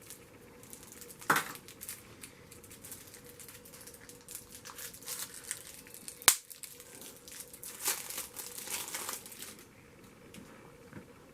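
Plastic packaging crinkling and rustling as a camcorder battery is handled and unwrapped, with scattered small clicks and one sharp click about six seconds in.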